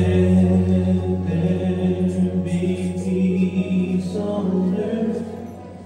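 A group of voices singing unaccompanied in a chant-like style, a melody moving over a steady low held drone. The sound eases off slightly near the end.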